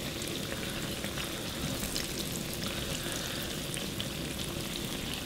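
Pizza dough frying in a pan of hot olive oil: a steady sizzle with small scattered crackles.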